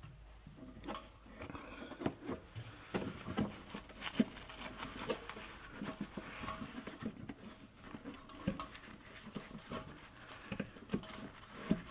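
Irregular clicks, knocks and rubbing as a rubber exhaust hanger isolator is pushed and worked onto a steel hanger rod by hand.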